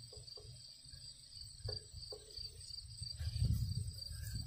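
Crickets chirping in a steady, fast pulsing trill, with uneven low rumbling from handling of the microphone that swells about three seconds in.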